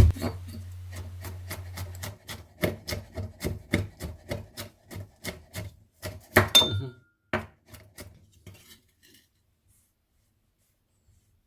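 Kitchen knife finely chopping garlic on a cutting board in steady strokes, about three a second, with one heavier knock about six and a half seconds in. The chopping stops about nine seconds in.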